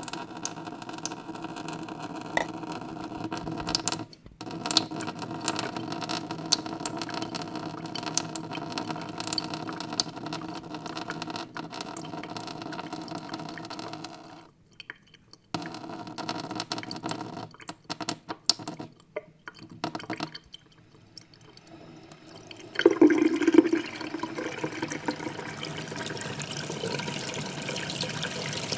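Water running from an open tap into a stainless steel sink, a steady splashing with a ringing metallic tone. The sound cuts out briefly a few times, and grows louder for about a second near 23 seconds in.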